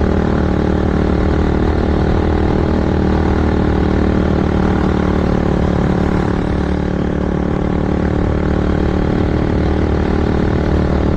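Carbureted Yamaha YFZ450 quad's single-cylinder four-stroke engine, bored out to 501cc and fitted with a sport exhaust, running at low, steady revs.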